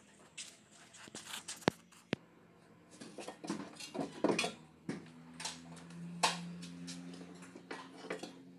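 Scattered metallic clicks and knocks of hand work on a car's rear suspension as a coil spring is seated by hand. A low steady hum joins about halfway through.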